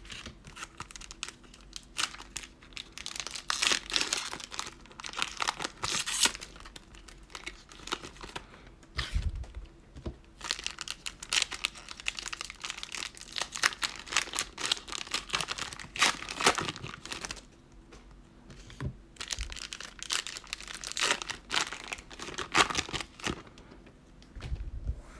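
Foil wrapper of a 2020 Panini Mosaic football card pack crinkling and tearing as it is ripped open by hand, in irregular bursts.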